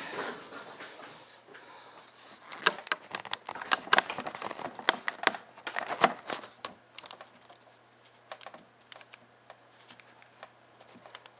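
Irregular clicks, taps and light rustling of small objects being handled and set down on a table, busiest in the middle and thinning to a few scattered ticks near the end.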